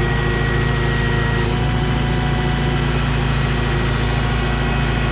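Engine running steadily at an even speed, close by, with no change in pitch.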